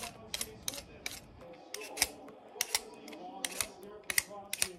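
Vegetable peeler scraping strips of skin off a sweet potato: quick, irregular rasping strokes, about two to three a second.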